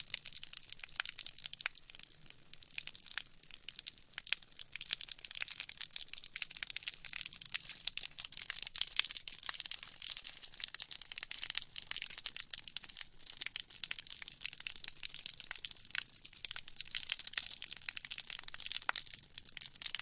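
Water from a hose spraying onto concrete: a steady, high-pitched spattering hiss full of fine crackling ticks.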